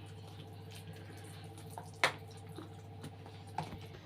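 Spoon stirring sautéed onion and grated pumpkin into wet rice batter in a bowl, with soft wet squelching, a sharp tap about two seconds in and a fainter one near the end.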